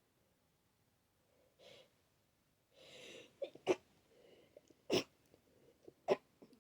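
A person with a head cold sniffling and drawing a breath in, then three short, sharp sneezes about a second apart.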